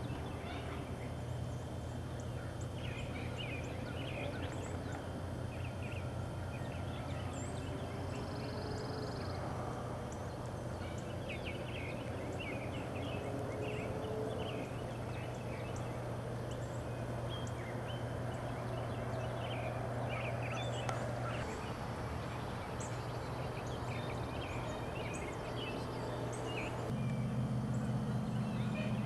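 Birds calling in woodland: clusters of short, scattered chirps and calls, one brief high whistle, over a steady low hum that grows louder near the end.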